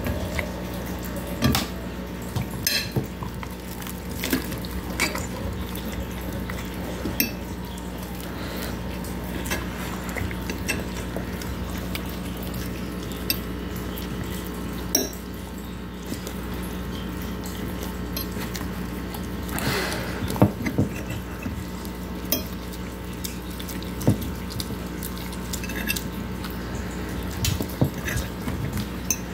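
Metal fork cutting pizza on a plate, with scattered clinks and scrapes of the fork against the plate over a steady low hum.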